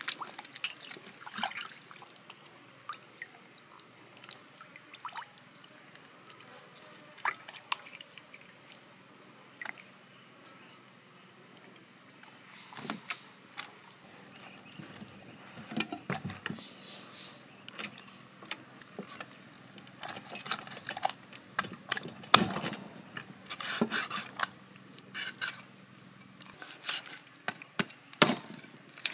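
Water splashing and dripping as a raw whole chicken is washed by hand in a metal basin. Later come scattered sharp knocks and clatter as the chicken is handled on a wooden chopping board.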